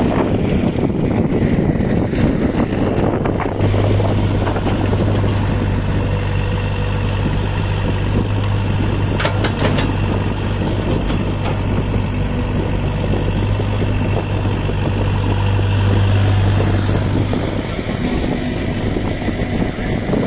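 Heavy diesel engine running steadily with a deep, even hum that strengthens a few seconds in and eases near the end. A few light clicks come about halfway through.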